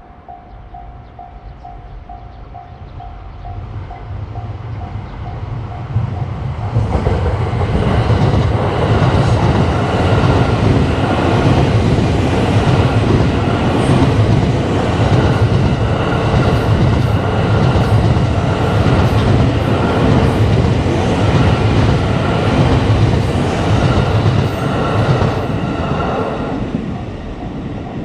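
Japanese level crossing alarm bell ringing its repeated 'kan-kan' tone, then a train passing close by over the crossing for about twenty seconds, loud, with wheels clacking rhythmically on the rail joints and drowning out the bell. The bell is heard again faintly as the train clears near the end.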